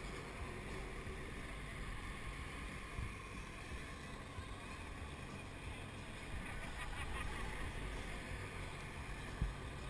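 Steady wind rumble on the microphone of a camera worn by a bungee jumper hanging from the cord, with a sharp knock near the end.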